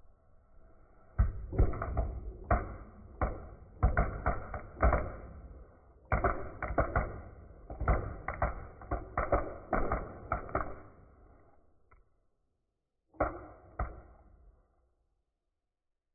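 A rapid string of dull bangs and thumps, muffled and low-pitched. A second, shorter cluster comes a second or so after the first dies away. These are small explosions going off in a box, heard in slowed-down audio.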